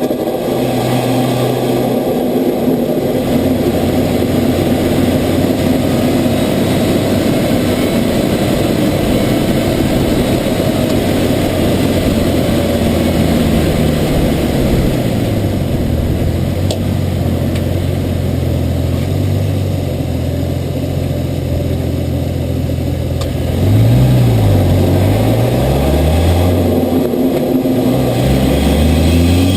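Ford Falcon F6 Typhoon's turbocharged 4.0-litre inline-six, with its blow-off valve deleted, running steadily. From about halfway through, its pitch rises and falls several times as the revs change, and it gets louder a little over three-quarters of the way in.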